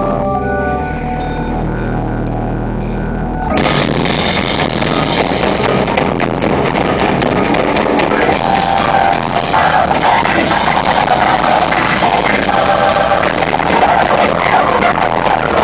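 Live rock band on stage with drum kit and electric guitar: sustained low and pitched tones at first, then about three and a half seconds in the whole band crashes in together, loud and dense, and keeps going.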